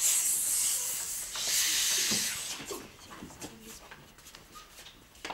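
Two long shushes, "shhh!", as people hush one another, the second right after the first. They are followed by a few faint small knocks and rustles.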